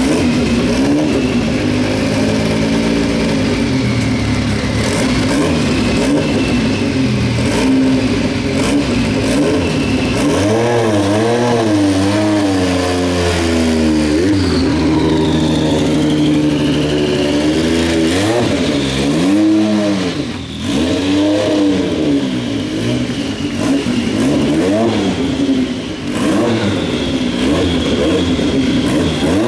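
Porsche 962C Group C race car's twin-turbo flat-six idling steadily, then blipped repeatedly, the revs rising and falling in quick surges from about ten seconds in and again after about eighteen seconds.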